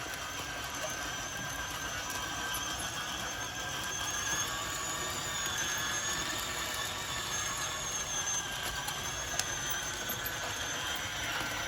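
A 1/12-scale RC Komatsu D155 bulldozer giving off a steady high whine whose pitch wavers and rises a little midway.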